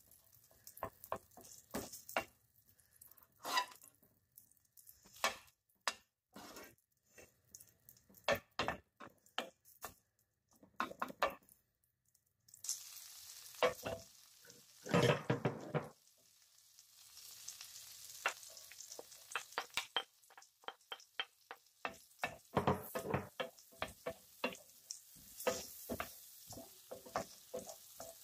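Butter melting and sizzling in a frying pan while a wooden spoon stirs and scrapes it, with many small knocks of the spoon against the pan. The sizzle becomes a steadier hiss about halfway through as the butter foams.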